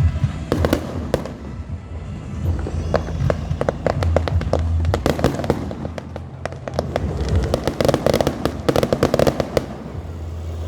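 Fireworks going off: sharp cracks and bangs, with rapid crackling volleys in the middle and again near the end, over a steady low rumble.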